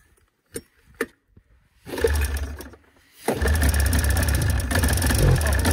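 Arctic Cat Cougar 500 snowmobile's two-stroke Suzuki engine being pull-started: it fires briefly about two seconds in and dies, then catches a second later and keeps running. Two light knocks come before it.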